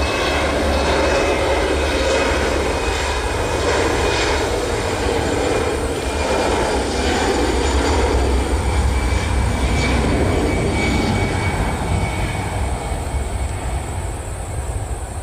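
Airbus A320 twin turbofan jet engines running at take-off thrust during the take-off roll: a loud, steady roar with a deep rumble, easing slightly near the end as the airliner rotates.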